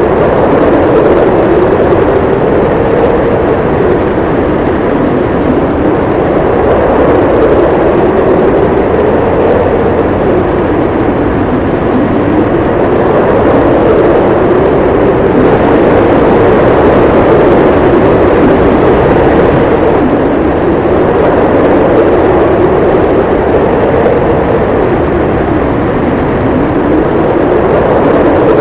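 Howling wind in a winter snowstorm: a loud, continuous rushing noise whose pitch slowly rises and falls in swells every few seconds.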